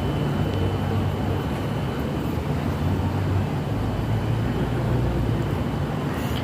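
A steady low droning hum with a rumble underneath, its level wavering slightly without a break: the unexplained night-time sound.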